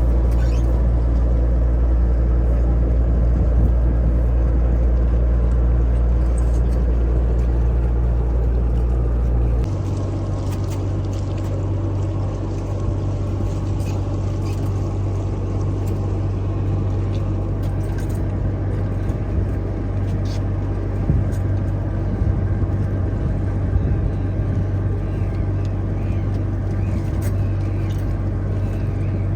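Boat engine running steadily, a low drone whose note shifts down and gets a little quieter about ten seconds in, as if the throttle were eased.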